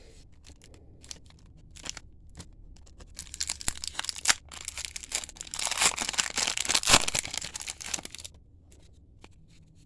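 A trading card pack wrapper being torn open and crinkled: a dense crackling rustle from about three seconds in to about eight seconds, with a few handling clicks before it.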